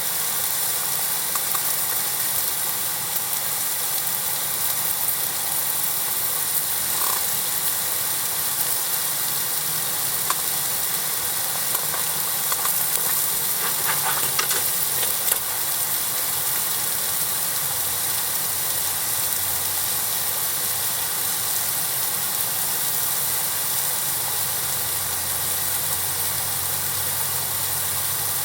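Campfire burning: a steady hiss with a few faint crackles and pops.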